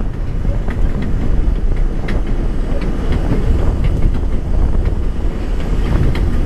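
Subway train running along elevated track, heard from on board: a steady low rumble of wheels on rail, with scattered sharp clicks from rail joints and switches.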